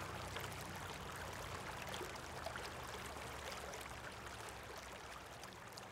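Water flowing and rippling over a rock, a steady rushing that slowly fades out.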